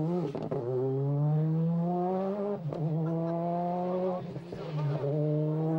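Ford Focus WRC rally car's turbocharged two-litre four-cylinder engine at full throttle, accelerating up through the gears: the pitch climbs, breaks at each upshift with a short sharp crack, and climbs again.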